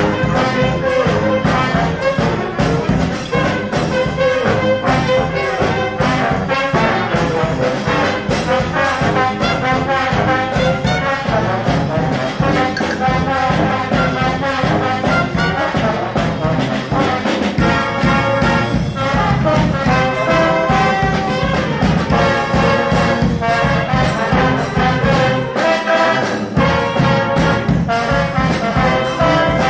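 Street-style brass band playing a tune: trumpets and trombones carrying the melody over a steady beat.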